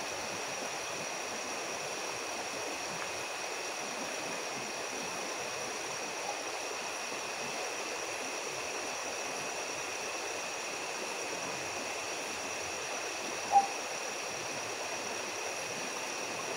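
Steady rushing of a large river flowing, with two thin steady high tones running over it. A single short chirp stands out late on.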